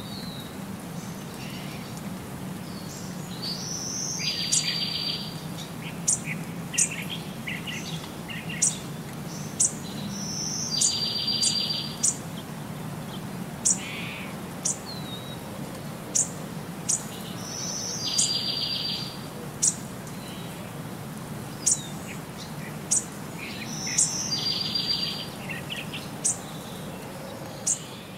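Birdsong: short high chirps and a buzzy trill that come back in the same pattern about every six to seven seconds, over a steady low hum.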